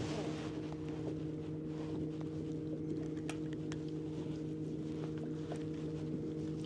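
A small electric motor on a fishing boat humming steadily at one low pitch, with scattered light taps and clicks.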